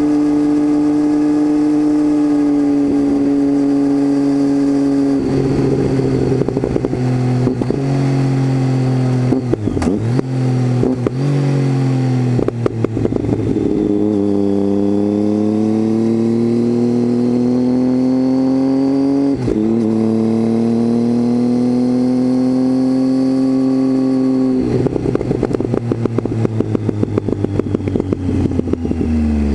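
Triumph Tiger 800's three-cylinder engine heard onboard through a baffle-less titanium Leo Vince exhaust. It holds a steady drone, then drops in pitch with a crackly, popping note and pulls up through the revs twice, with a quick shift between, before falling back into a crackle near the end.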